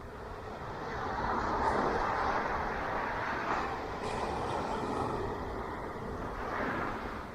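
Ocean surf: a wave breaking and washing up the beach, swelling about a second in and easing off near the end.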